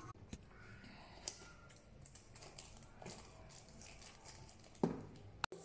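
Small plastic food bag being handled and snipped open with kitchen scissors: faint scattered crinkles and clicks, with one louder sharp sound near the end.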